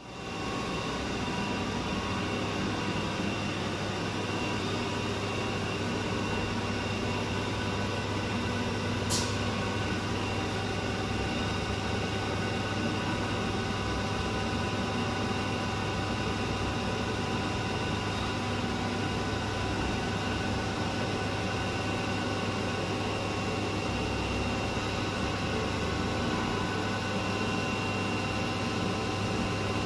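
A Haas VF-3YT/50 CNC vertical mill runs behind its closed doors with coolant spraying inside the enclosure. It makes a steady machine hum with several steady whining tones over a hiss. A single sharp tick comes about nine seconds in.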